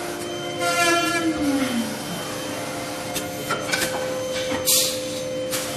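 CNC wood lathe running: a steady motor whine while the router-spindle cutter shapes a turning wooden dowel, with short bursts of cutting noise, the loudest near the end. About a second in, one tone of the whine drops in pitch.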